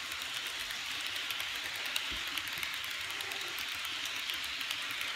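Model freight train running along the track: a steady hiss with light, irregular clicking.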